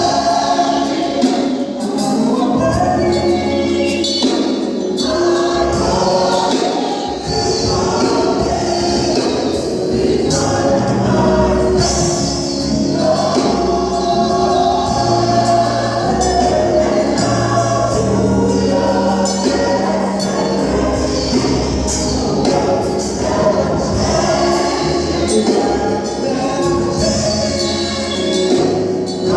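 Choir singing a gospel song with live band accompaniment, bass and drums keeping a steady beat.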